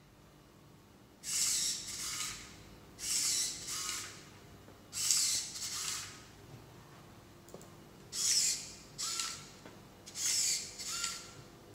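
Small servo motors in a 3D-printed robotic hand whirring as they drive the fingers: five short bursts, each about a second long and in two parts, with a brief whine at the end of the later ones.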